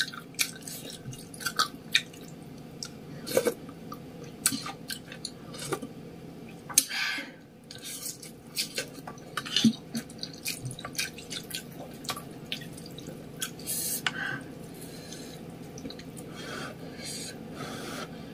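Close-miked chewing of a fried fritter: wet mouth clicks and smacks, coming irregularly.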